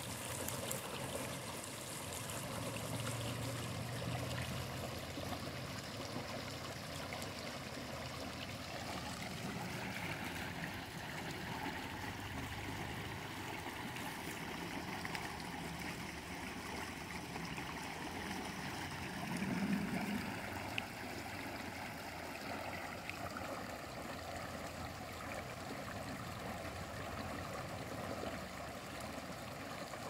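Shallow rocky creek running steadily, water trickling over stones and splashing down a plastic slide laid in the current, with a brief low rumble about two-thirds of the way through.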